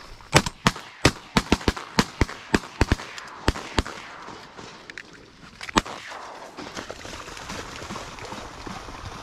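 A volley of shotgun fire from several duck hunters shooting at incoming ducks: about a dozen quick, overlapping shots in the first four seconds, then a single shot near six seconds in.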